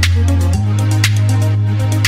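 Electronic dance music with a deep held bass line and a steady beat, a sharper hit about once a second; the bass note shifts about half a second in.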